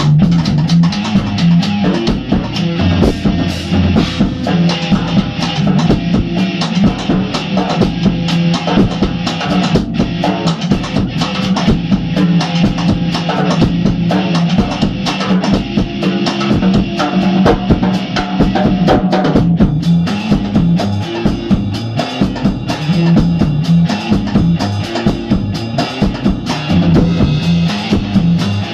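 Improvised jam of electric guitar and drum kit playing together, dense drum strokes over the guitar, recorded through a phone's microphone.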